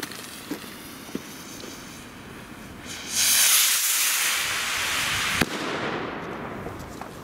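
Firework rocket's fuse fizzing and crackling. About three seconds in, the rocket lifts off with a loud rushing hiss that fades as it climbs, with one sharp crack about five and a half seconds in.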